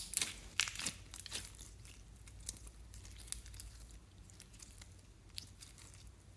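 Translucent green slime being squeezed and stretched by hand, giving a run of sharp crackles and pops, densest in the first second and a half and then scattered.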